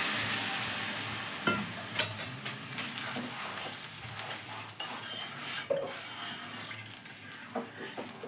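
Sizzling of water poured into a metal kadai of rice and mung dal frying in oil; it fades over the first second or two. A metal spatula then stirs and scrapes in the kadai, with scattered clinks, the sharpest about two seconds in.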